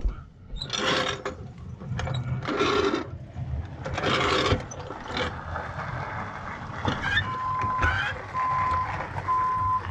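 Clattering and scraping as a steel floor jack is rolled and positioned on concrete. About seven seconds in, a vehicle's reversing alarm starts beeping with a steady tone, about once a second, three beeps.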